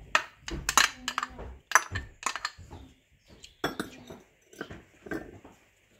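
White spatula scraping and tapping a small bowl as diced boiled potatoes are tipped out into a glass bowl: a run of irregular clinks and scrapes.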